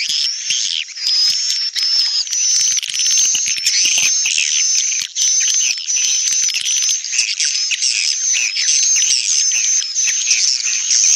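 Recorded swiftlet lure sound: a dense, unbroken chorus of many swiftlets chirping and twittering, with a thin, high steady whistle running through it. It is a call sound layered over a roosting sound, played in swiftlet farming to draw the birds into a nest house and make them stay.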